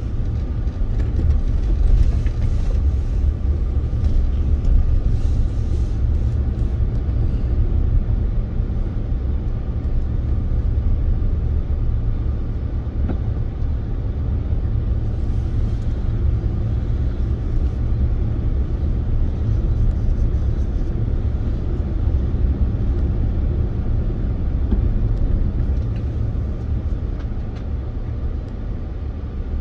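Outdoor ambience dominated by a steady low rumble with no speech.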